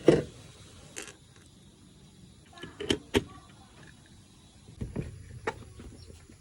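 A handful of sharp clicks and knocks at uneven intervals from a wall clock being handled.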